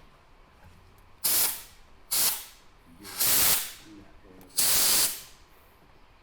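Compressed-air blow gun fired in four short blasts of hissing air, the last two a little longer, blown into a clogged passage on a 1964 Ford Falcon with no air getting through to the other end.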